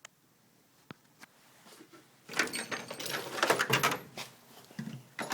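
A couple of faint clicks, then about two seconds of metal hand tools rattling and clinking in a steel toolbox drawer as it is handled and slid, with a last clunk near the end.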